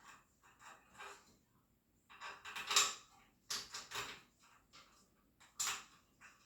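A small screw being driven into a flat-pack dresser frame, with irregular short creaks and scrapes as it turns and the parts are handled.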